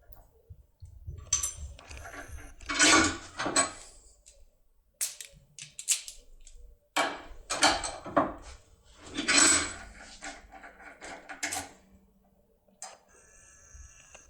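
Irregular metallic clicks and rattles of a foil impression tool and lock cylinder being handled and worked, with louder clusters about three and nine seconds in.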